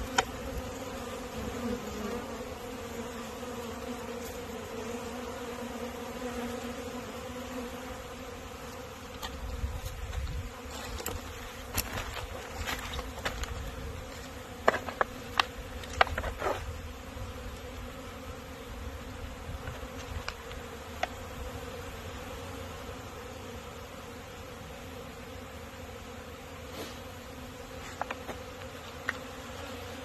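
Many honeybees buzzing as a steady hum as they fly in and out of the hive entrances on a winter cleansing flight. A handful of sharp clicks or knocks come about halfway through.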